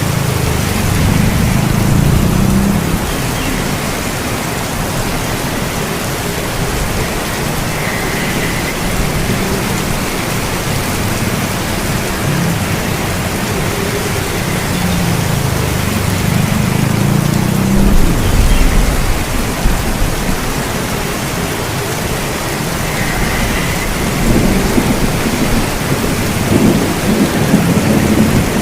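Steady heavy rain with thunder rumbling several times over it. The loudest roll comes about two-thirds of the way in, and another follows near the end.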